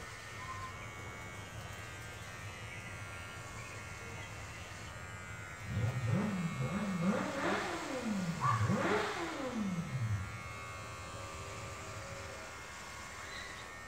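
Electric hair clippers buzzing steadily while shaving a head. From about six seconds in to about ten seconds, a louder vehicle engine revs, its pitch rising and falling several times.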